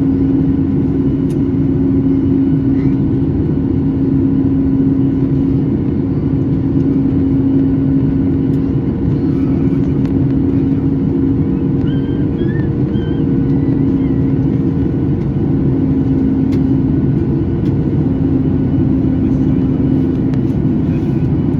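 Steady cabin drone of a Boeing 737 MAX in flight, its CFM LEAP-1B engines and airflow making an even rushing hum with a steady low tone.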